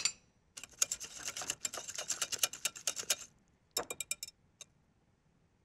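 Wire whisk beating a thin batter in a glass bowl: rapid ticking of the wires against the glass for about three seconds, then a short burst of strokes and a single tick.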